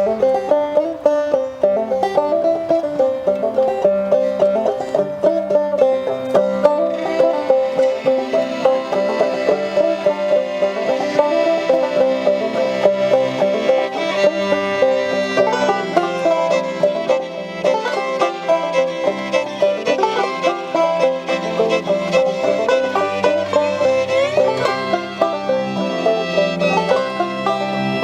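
Live acoustic string band playing an instrumental folk tune.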